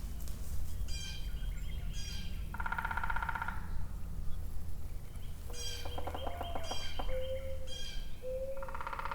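Several wild birds singing and calling: repeated high chirping phrases, a harsh buzzy call twice (about two and a half seconds in and again near the end), and low whistled notes in the second half. A steady low rumble runs underneath.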